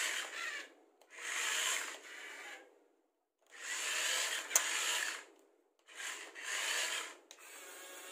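Huina 1567 1:24-scale RC wheel loader's small electric motors and plastic gears whirring in four bursts of a second or two each, with short pauses between, as the toy drives and turns. One sharp click comes about four and a half seconds in.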